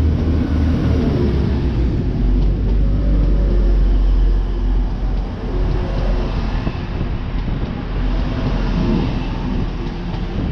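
Two coupled Class 185 diesel multiple units running past along the platform: a steady low diesel drone with wheel and rail noise. The sound eases off a little in the second half as the train draws away.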